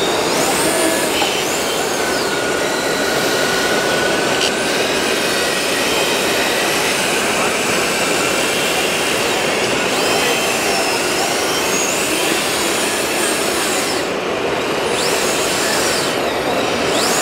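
Scale RC model wheel loader (a homemade 1:8 Caterpillar 988F) driving and working its bucket: high motor whines that rise and fall in pitch as it moves, over a steady, dense hall din.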